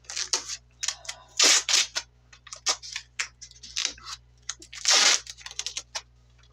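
Strips of tape being pulled off the roll and ripped off: a run of short, sharp rasps, with one longer pull about five seconds in.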